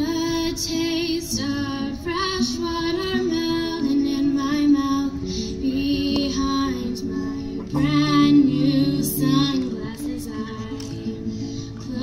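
A woman singing with vibrato, accompanying herself on acoustic guitar.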